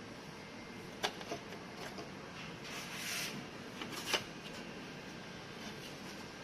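A few sharp clicks and a brief rustle over a faint steady hiss: small objects being handled.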